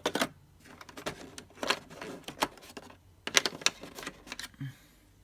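Plastic packaging being handled: quick clusters of clicks and crackles, coming in three bursts, as small accessories are taken out of a plastic tray.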